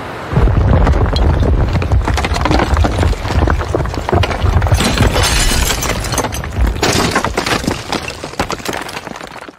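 Sound effect of a skyscraper collapsing: a heavy low rumble under a dense run of crashes, crackling debris and shattering glass, fading out near the end.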